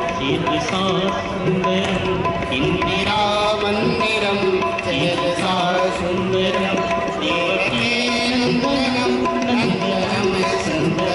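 Live Ganga aarti devotional music: a sung melody over tabla and other percussion.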